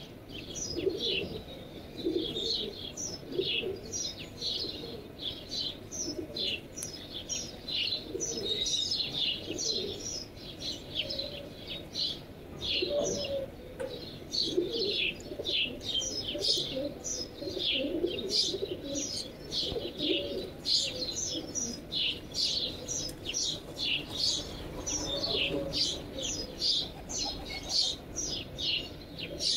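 Birds calling continuously: a dense run of short, high chirps, with lower, softer calls underneath.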